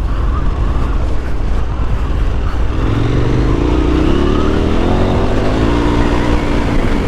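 KTM 1290 Super Adventure S's V-twin engine pulling the motorcycle up a dirt hill, with a steady low rumble throughout; about three seconds in the revs rise and then hold, wavering up and down as the throttle is worked.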